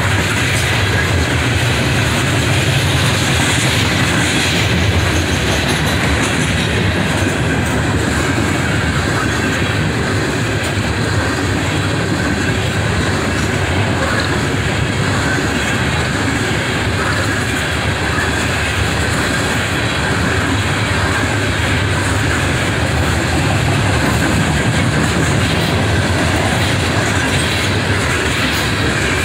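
CSX coal train's open-top hopper cars rolling past close by: a steady rumble with wheels clattering over the rail joints.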